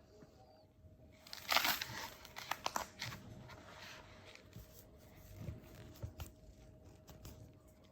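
Crinkly plastic being handled and crumpled, with a loud burst of crinkling and sharp crackles about a second and a half in, then quieter rustling and light handling knocks.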